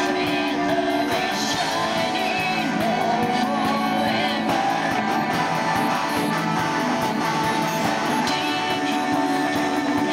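Live rock band playing, with strummed guitar prominent over a steady full-band backing.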